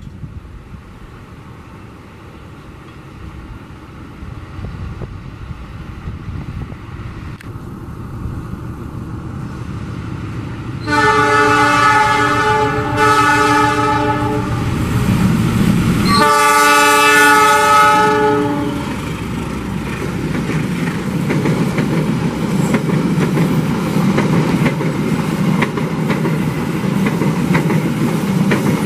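A diesel-electric locomotive hauling a passenger train approaches, its engine rumble growing louder. About eleven seconds in it sounds a multi-tone horn in a blast broken by a short gap, then a second blast about five seconds later. As the carriages pass, the wheels clatter over the rail joints.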